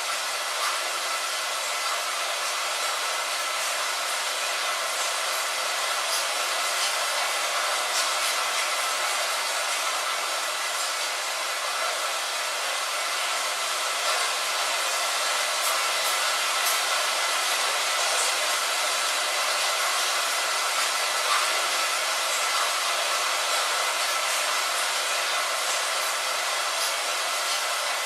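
Steady rain sound: a dense, even hiss with occasional sharper single-drop ticks.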